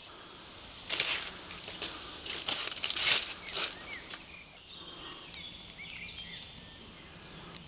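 Several short bursts of crinkling and rustling in the first half, like a wrapper or packaging being handled, then small birds chirping faintly.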